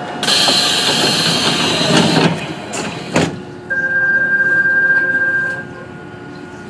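Korail 351000-series subway train running through a tunnel, heard from inside the car. A loud rushing hiss lasts about two seconds and is followed by a sharp knock. A steady high tone then sounds for about two seconds over a lower steady hum.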